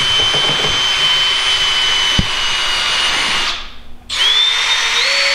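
Cordless drill spinning a mixing paddle through two-part epoxy resin in a plastic mixing cup, with a steady motor whine. There is one knock about two seconds in. The drill stops briefly just before four seconds, then starts again with its whine rising in pitch.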